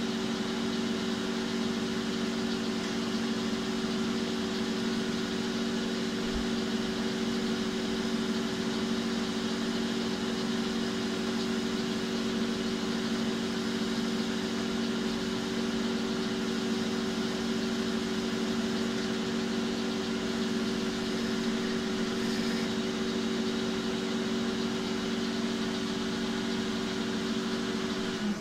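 Metal-turning lathe running steadily, its motor and gearing giving a strong even hum. At the very end it is switched off and the hum drops in pitch as it winds down.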